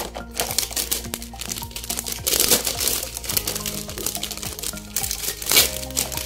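Packaging crinkling and rustling as a sticker box is opened by hand, loudest about two and a half seconds in and again near the end. Background music plays underneath.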